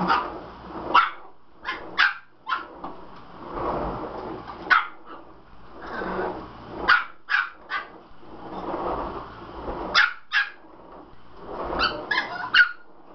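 Chihuahua barking at a vacuum cleaner in sharp, high yaps, some single and some in quick runs of two to four, with a quick burst of four near the end. Under the barks, the upright vacuum's noise swells and fades as it is pushed toward the dog and back.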